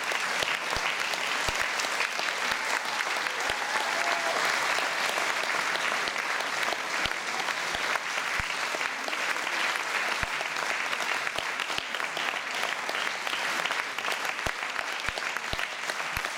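Audience applauding: many hands clapping in a steady, dense wash that holds at the same level throughout.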